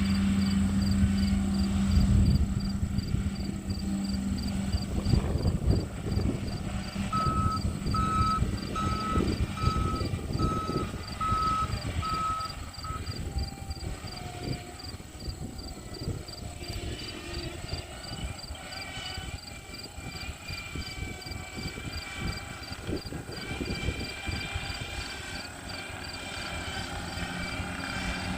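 Bobcat skid steer's engine running under load while it works dirt. The engine hum is strongest in the first couple of seconds, then eases and varies as it works. A backup alarm beeps steadily for about six seconds starting a quarter of the way in.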